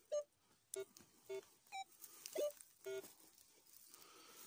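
Metal detector giving short low beeps, about six a little over half a second apart and shifting in pitch from one beep to the next, as the coil sweeps over the ground: the signal of buried metal still left in the pit.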